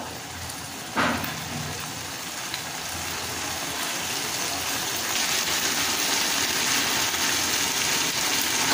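Boiled peas and spice paste sizzling in hot mustard oil in a kadai, a steady hiss that grows a little louder about halfway through; a single knock about a second in.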